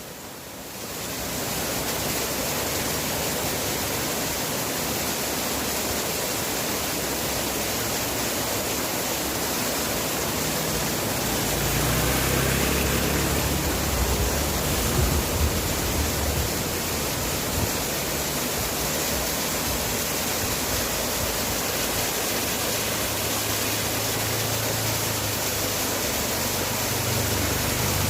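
Waterfall pouring steadily, a constant rush of falling water. A low rumble swells in for several seconds partway through.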